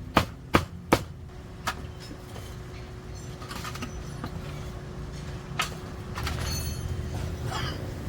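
A cleaver chopping on a block: four sharp strikes in the first two seconds, then a low rumble with scattered clinks and rattles.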